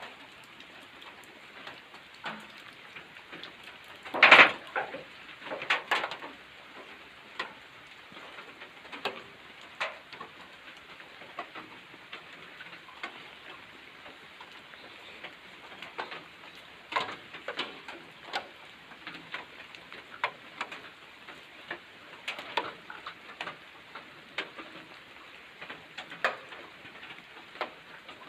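Rain falling steadily, with irregular sharp drips and taps of water drops hitting surfaces; a single louder knock comes about four seconds in.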